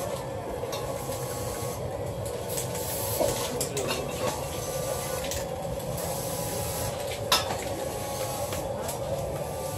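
Short hisses of aerosol spray paint over a steady mechanical hum, with a sharp knock about seven seconds in.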